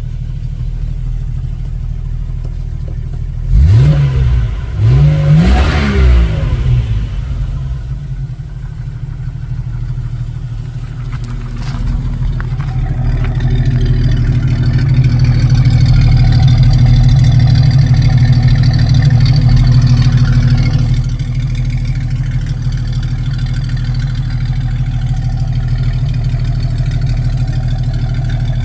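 1994 Jeep Wrangler YJ engine running, blipped twice about four and six seconds in, then held at a higher speed for several seconds before settling back to idle.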